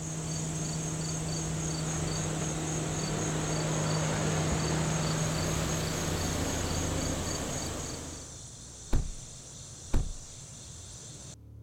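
Chorus of insects chirping steadily with a high, evenly pulsing trill, over a broad rushing noise that fades about eight seconds in. Two sharp knocks sound about a second apart near the end, and the insect sound then cuts off abruptly.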